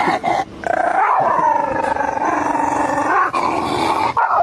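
A dog giving a long, wavering howl-like cry with a growly edge, its pitch rising and falling, and breaking off briefly about three seconds in.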